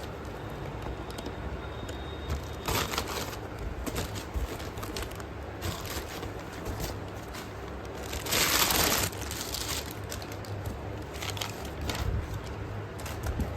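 Crinkling and crackling of plastic parcel packaging being handled, with scattered sharp clicks and one louder ripping rustle lasting about a second, roughly two-thirds of the way through.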